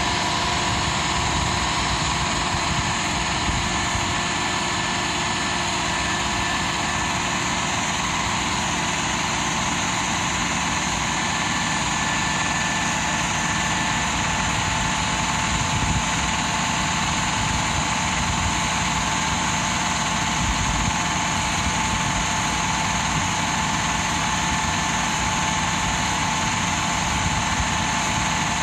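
Lindner transporter's engine running steadily at a constant speed to drive the Vendrame slurry tanker's lobe pump while the jet gun sprays a continuous stream of liquid manure. Steady mechanical rumble with a constant whine over it.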